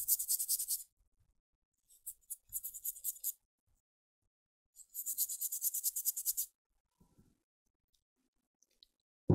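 Rapid scrubbing strokes across a laptop CPU chip as it is cleaned of dust before fitting, in three quick bursts of one to two seconds with short pauses between them.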